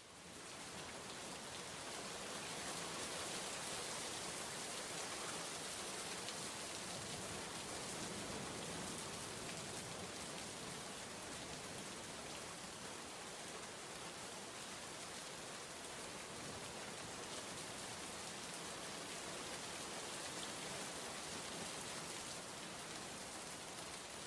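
Steady, even hiss of noise, fading in during the first second.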